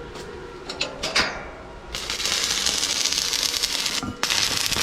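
Electric arc welding on steel, a steady dense crackle that starts about two seconds in and breaks off briefly near the end before carrying on. A few light clicks come before it.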